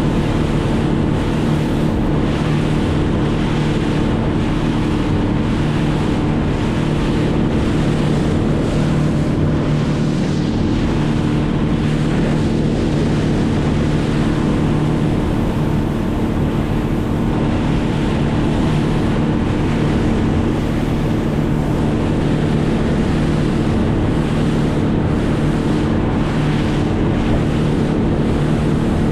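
Boat motor running at a steady speed, with water rushing past the hull and wind buffeting the microphone.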